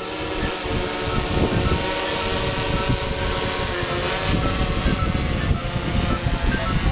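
Hexacopter drone built on a DJI F550 Flame Wheel–style frame, its six motors and propellers running with a steady buzz as it flies low and close. The propeller downwash buffets the microphone with gusty rumbling.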